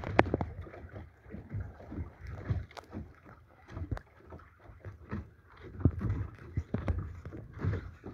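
Water and wind noise aboard a small schooner-rigged sharpie under sail, picked up by a phone inside a dry bag, with a low rumble and many irregular light clicks and knocks.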